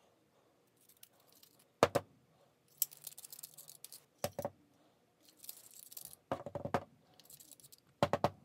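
Sand and grit trickling out of a Cat Pumps hot-water pressure washer wand's brass valve body in short hissing pours, broken by several sharp knocks as the metal wand is tapped on a plywood bench to shake it loose. The sand packed in the valve is what kept the trigger pin from moving freely.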